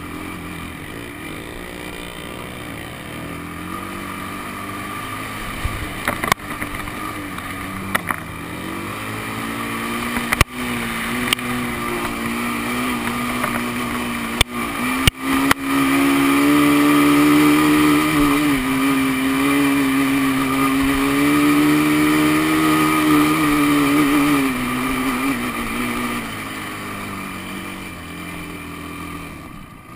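Honda sport quad's engine running under throttle on sand, its pitch rising from about ten seconds in and held high and loudest for about ten seconds before easing off near the end. A few sharp knocks come through along the way.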